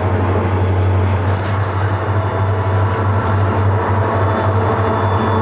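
Freight train of open-top coal cars rolling past. The wheels on the rail give a steady, even rumble with a strong low hum.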